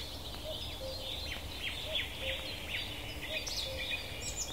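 Songbirds singing: a busy, overlapping chatter of short chirps and trills over a low background rumble.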